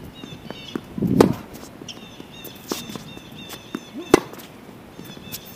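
Tennis rally: racket strings striking the ball, a loud hit about a second in, a fainter hit from the far end of the court near the middle, and a sharp close forehand hit about four seconds in, with lighter knocks of bounces and footsteps between.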